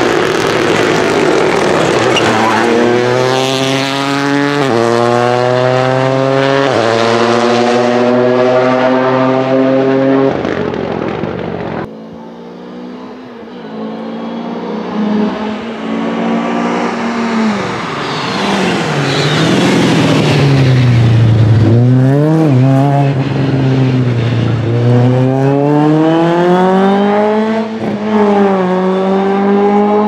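Rally car at full throttle, climbing through three quick upshifts, each one dropping the pitch before it climbs again. After a cut, another rally car revs and falls, blips the throttle on downshifts and then accelerates hard again.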